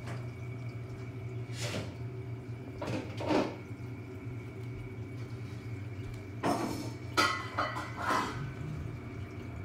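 Steady low hum of reef aquarium equipment with a faint thin whine above it, broken by five or so brief swishing sounds.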